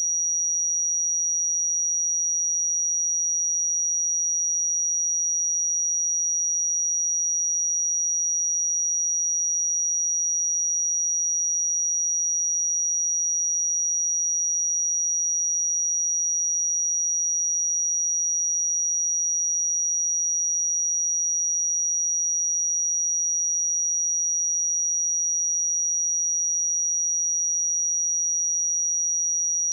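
Steady 5767 Hz sine-wave test tone, a single high-pitched pure tone held unchanged at constant level.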